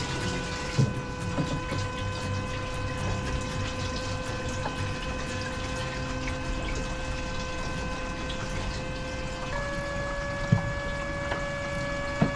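Small 12-volt electric transfer pump whining steadily as it pumps fuel from a jerry can through a hose into the boat's fuel tank, with liquid running. Its pitch steps up slightly about nine and a half seconds in, and a couple of short knocks come near the end.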